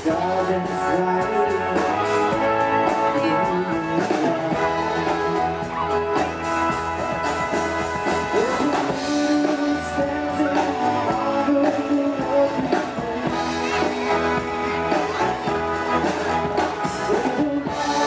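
Naval band playing live: a large wind band with brass and drums playing a tune over a steady drum beat.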